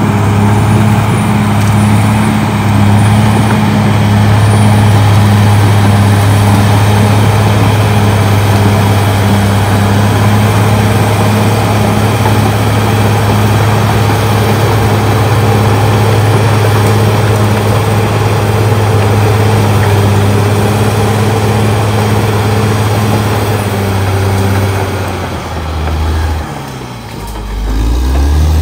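CAT D6R XL bulldozer's diesel engine running steadily as it pushes brush. Near the end the engine note drops and briefly falls away, then picks up again.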